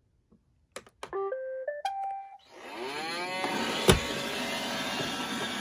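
iRobot Roomba robot vacuum being restarted: a click as its CLEAN button is pressed, then its short start-up melody of electronic beeps. Its motors then spin up with a rising whine into a steady running noise as it starts a cleaning run, with one sharp knock a little after halfway, the loudest sound.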